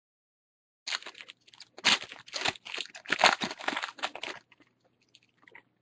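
Foil wrapper of a baseball card pack being torn open and crinkled: a dense crackling starting about a second in and lasting about three and a half seconds.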